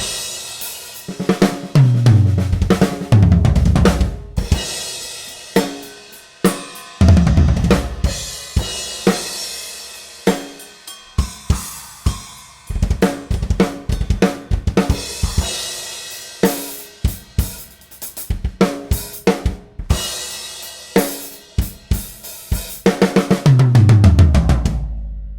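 DW Collector's Series almond/maple drum kit played as a full groove: snare, bass drum, hi-hat and cymbals, broken by tom fills that run down from the high toms to the floor tom. A final fill about two seconds before the end rings out as the playing stops.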